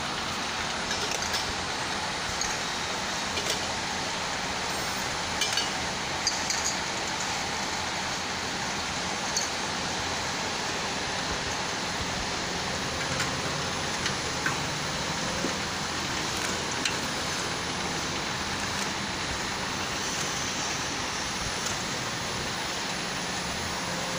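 Three-side bottle labeling machine running with a steady mechanical whir, glass bottles clinking against each other and the rails now and then as they ride the conveyor.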